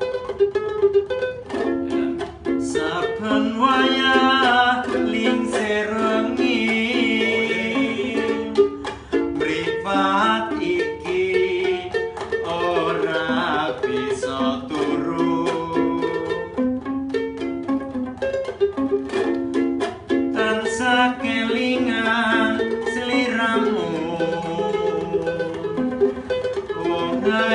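Instrumental introduction to a Javanese song: plucked string instruments strumming over steady bass notes, with a wavering melody line above.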